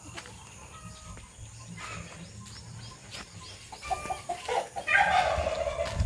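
Chickens clucking in a coop. The calls grow louder over the last two seconds, with one longer, drawn-out call near the end.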